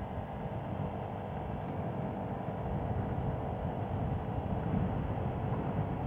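Arora R50 Cappuccino 50 cc scooter under way at about 45 km/h: the small engine's steady drone mixed with wind and road noise, growing slightly louder as it speeds up.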